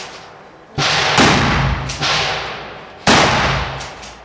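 Four gunshots from a competitor's gun, fired in quick, uneven succession, each followed by a long ringing echo that dies away.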